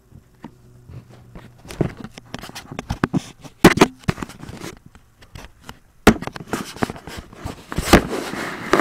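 Irregular handling noise: clicks, taps and scraping, with sharp knocks about three and a half and six seconds in and busier clatter near the end. No ringtone or other tone sounds.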